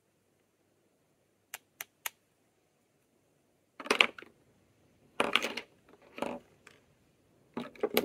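Lip balm packaging being handled and opened by hand: three quick small clicks, then four short bursts of packaging noise about a second apart.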